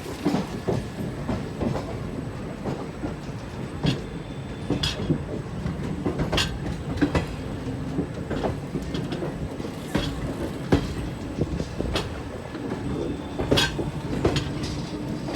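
Indian Railways train running on the track: a steady rumble with irregular sharp clacks and knocks from the wheels passing over rail joints.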